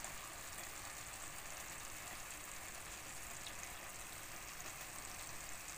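Chicken curry in coconut-milk sauce simmering in a pan, a faint steady sizzle and bubbling.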